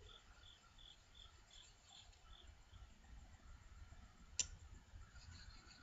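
Faint, rhythmic chirping of an insect, about two to three chirps a second, fading out partway through. A single sharp click comes about four and a half seconds in.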